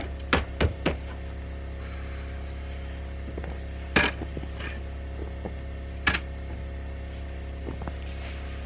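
Sharp knocks and taps, three in quick succession at the start, then single louder ones about four and six seconds in, over a steady low hum.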